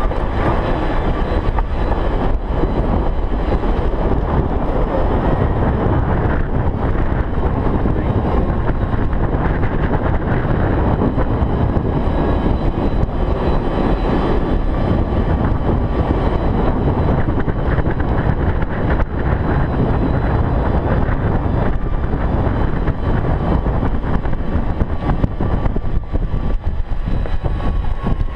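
Golf cart driving steadily: continuous motor and tyre noise mixed with wind buffeting the microphone, with a faint steady whine running through it.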